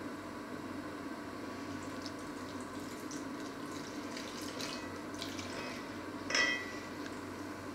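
Wet grains and liquid being stirred in a stainless steel bowl: scattered small wet clicks and scrapes, then a short ringing clink off the metal bowl about six seconds in, over a steady background hum.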